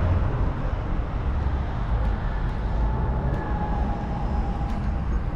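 Triumph Bonneville T100 parallel-twin engine idling through aftermarket Predator Pro silencers: a steady low rumble.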